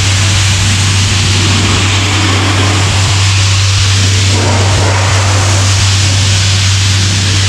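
Compressed-air blowpipe fed by a diesel air compressor, blasting dust: a loud steady rushing hiss over a constant low drone, with a stronger gust about four seconds in.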